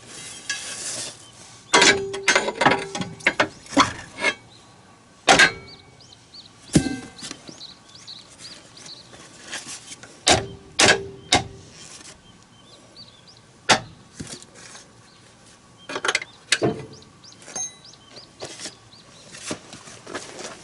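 Irregular sharp metal clanks and knocks from tool work on a snowcat's rubber crawler track, coming in scattered clusters; several strikes ring briefly.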